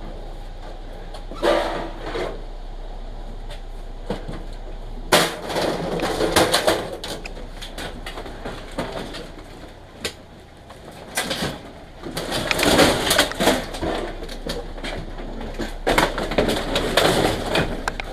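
Junk being rummaged and hauled out of a dumpster: bursts of scraping, rustling and clattering as items are shifted, in several separate spells.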